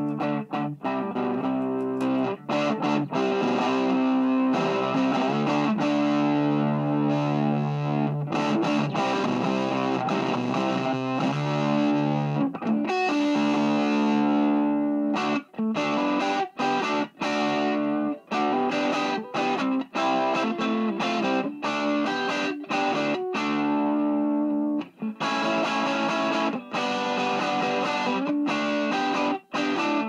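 Electric guitar played through a Univox Unidrive overdrive pedal into an EF86/EL84 valve amp head, giving distorted chords and riffs. Long ringing chords early on; in the second half the playing turns choppy, with many brief stops between stabs.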